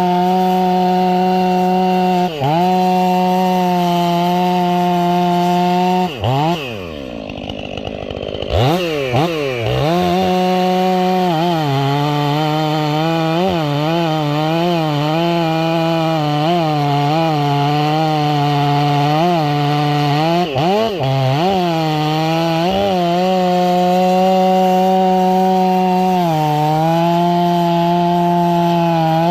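Stihl 500i chainsaw, its muffler baffle removed, running at high revs. About six seconds in the engine note drops away and quickly climbs back. After that the pitch sags and recovers again and again, as a saw does when it is fed into wood.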